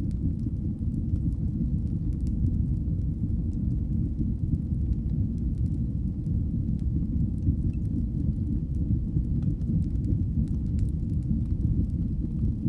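Crackling wood fire: a steady low rumble of burning with scattered faint pops and crackles.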